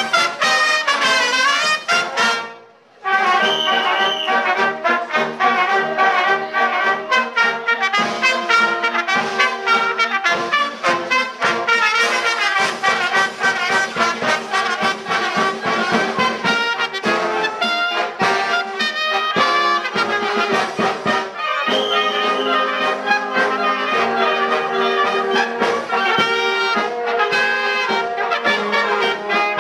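Uniformed wind band playing, with trumpets, saxophone and clarinets. The music breaks off briefly about three seconds in, then the playing resumes.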